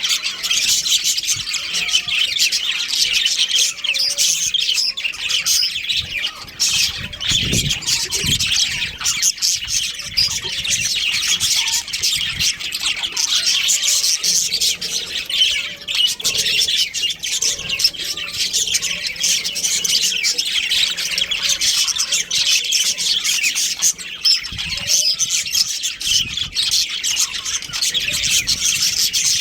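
Budgerigars chirping and chattering in a steady, dense stream of high-pitched chirps and squawks.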